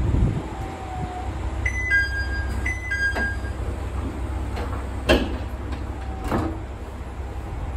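Two-note door chime sounding twice on a Kanto Railway Joso Line diesel railcar, followed by two sharp clunks as the sliding doors shut, over the steady low rumble of the railcar's diesel engine.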